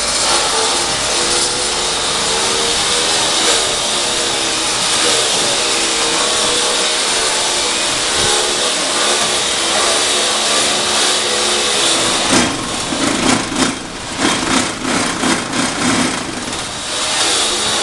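Automatic paving-block press machine running: a steady mechanical drone whose pitch wavers. About twelve seconds in, an irregular run of knocks and surges sets in for some five seconds before the steady running returns.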